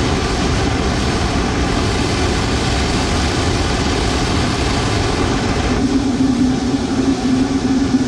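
Blower-powered furnace burner firing at full output: a loud, steady rushing blast of forced air and flame. About six seconds in, a steady low hum joins it.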